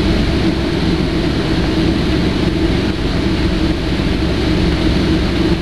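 Airliner cabin noise while taxiing: the jet engines give a steady, loud drone with a constant low hum.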